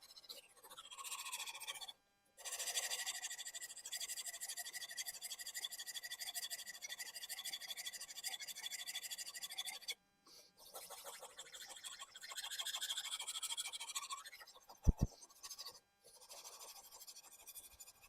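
Japanese kitchen knife blade stroked back and forth across a whetstone, a steady scraping with short pauses about two seconds and ten seconds in. A sharp knock, the loudest sound, about fifteen seconds in.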